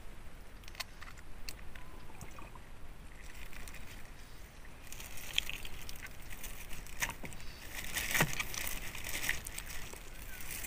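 Faint clicks and taps of hands working a plastic bottle and funnel, then from about halfway a thin plastic bag crinkling and rustling as it is handled.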